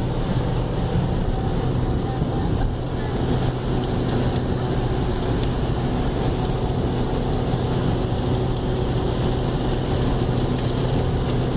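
Heavy rain pouring down, a steady hiss, with a steady low mechanical hum under it.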